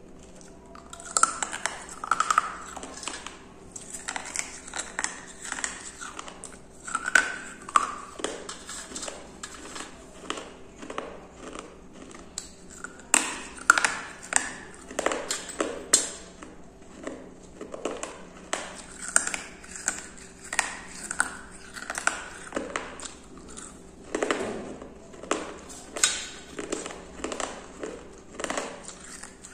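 Shards of a broken terracotta kulhad (clay cup) bitten and crunched between the teeth close to the microphone: many sharp, irregular cracks in quick runs. A few short ringing pings come near the start and again about seven seconds in.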